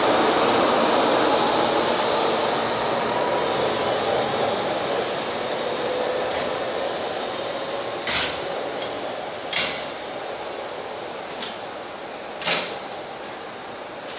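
Taiwan High Speed Rail 700T train pulling out of the station, its rushing noise and a faint motor whine fading away as the last cars leave. In the second half come several sharp clacks at uneven intervals.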